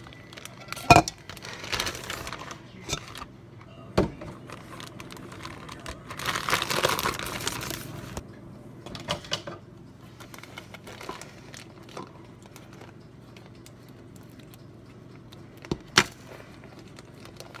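Plastic zip-top bag of pudding crinkling as it is handled, in two spells of rustling, with a few sharp knocks, the loudest about a second in, and small handling clicks between.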